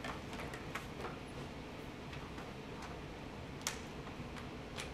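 A few scattered sharp clicks at irregular intervals over quiet room tone, the loudest about three-quarters of the way through.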